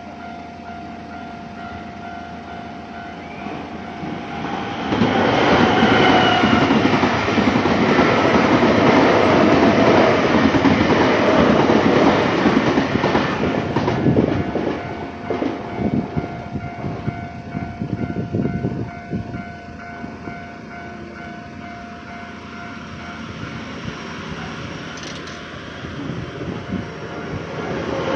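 Japanese level-crossing warning bell ringing steadily. About five seconds in, a Nankai Koya Line train passes over the crossing, loud for about ten seconds, its wheels clattering over the rail joints. The clatter fades out around twenty seconds in while the bell keeps ringing.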